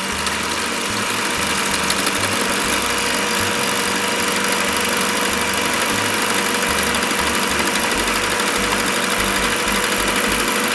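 Electric hand mixer running at a steady speed, its twin beaters whipping egg whites in a ceramic bowl to stiff peaks.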